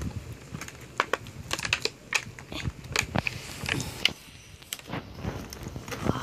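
Clear plastic packaging crinkling and crackling in irregular bursts as hands pull headphones and their cable out of it.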